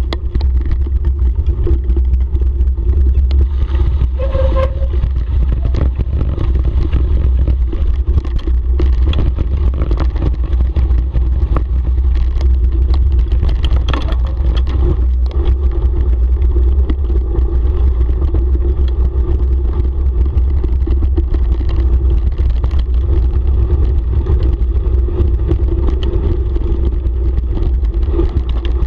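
Bicycle descending a rough, muddy dirt track: a steady heavy rumble of wind buffeting the microphone and tyres on the dirt, with scattered clicks and rattles from the bike over bumps.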